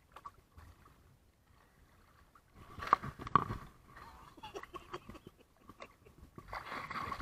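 Water lapping and sloshing against a waterproof action camera held at the waterline, with two sharp splashy knocks about three seconds in and a steadier wash of water noise near the end.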